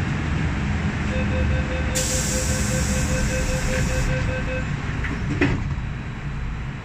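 MTR M-Train electric multiple unit heard on board with a steady low rumble. A pulsing tone runs from about a second in until past four seconds, with a burst of air hiss in the middle. A single sharp knock comes about five and a half seconds in.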